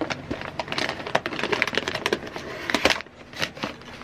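Toy packaging bag being torn open by hand, a dense run of crinkling and crackling for about three seconds, then a few sharper crinkles near the end.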